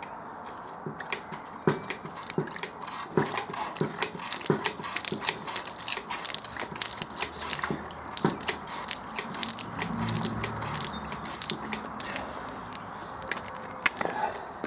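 Aveling-Barford road roller's diaphragm water-sprinkler pump being worked on a bench test rig: a run of irregular sharp clicks and knocks from the pump mechanism, several a second at times.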